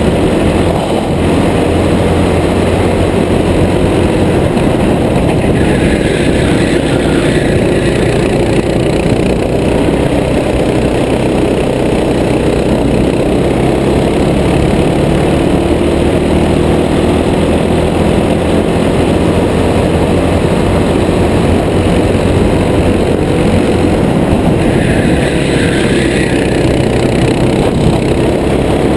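Racing kart engine running hard under the driver, its note rising and falling as the kart speeds up and slows through the corners.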